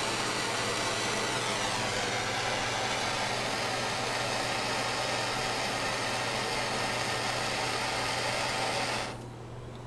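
Handheld butane torch burning with a steady hiss as it heats the nail of a dab rig. It is shut off about nine seconds in.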